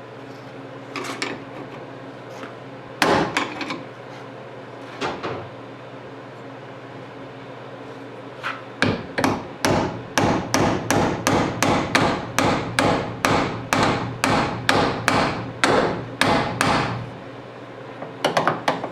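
Hammer blows driving a hinge pin back into a GMC squarebody door hinge fitted with new brass bushings: a few separate strikes, then a steady run of blows about three a second that stops shortly before the end, the pin going in tight.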